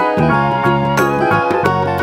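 Upbeat background music with a steady beat and light, tinkling melody notes.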